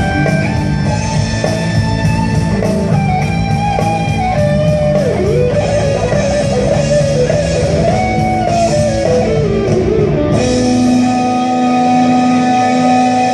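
Show soundtrack music led by an electric guitar playing a melody with bent, sliding notes over a steady bass and rhythm backing. About ten seconds in it changes to long held chords.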